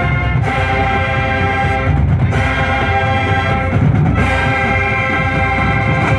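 Massed marching band's brass section playing long held chords, each about two seconds with a short break between, over bass drums and percussion.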